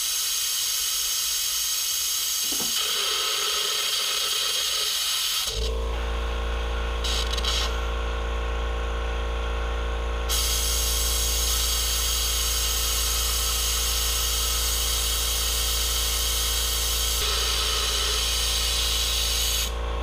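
Compressed air hissing steadily through a venturi vacuum coolant filler as it pulls coolant up the suction line to prime it. About five seconds in, a steady motor hum from the air compressor starts and runs on until near the end.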